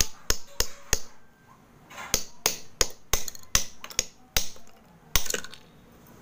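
Small hammer tapping the back of a steel blade wedged into a slab of multani mitti (Fuller's earth clay), splitting it into thin layers: about a dozen sharp taps, four quick ones, a pause of about a second, then a faster run, the last one longer.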